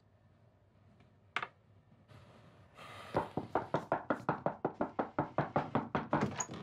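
Knocking on a locked wooden bedroom door: a single knock, then after about a second and a half a fast, insistent run of knocks at about five a second that keeps going.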